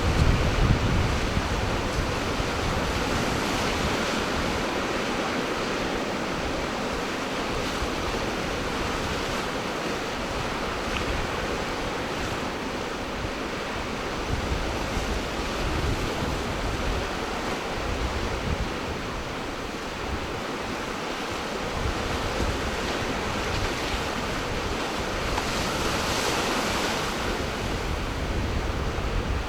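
Ocean surf washing steadily, with wind buffeting the microphone in low rumbling gusts; the surf surges louder a few seconds before the end.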